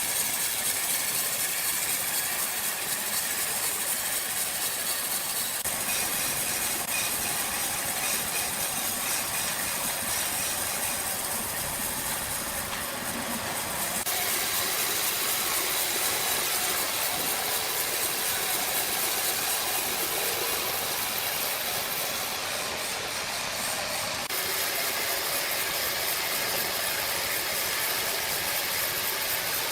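Sawmill machinery running with a steady hissing mechanical noise, which shifts abruptly a few times.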